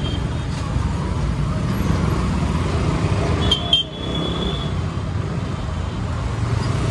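Motorcycle engine running low and steady at crawling speed in street traffic. About three and a half seconds in, a vehicle horn honks: two quick toots, then one held for about a second.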